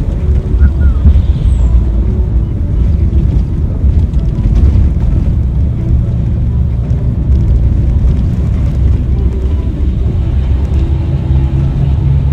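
Intercity bus on the move: a steady, loud low engine and road rumble, with a steadier engine tone coming in near the end.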